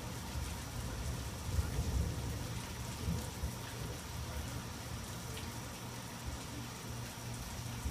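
Steady rain falling in a thunderstorm, with a low rumble swelling about two seconds in.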